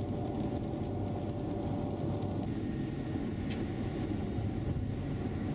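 A car driving on a highway: steady road and engine noise heard from inside the moving vehicle.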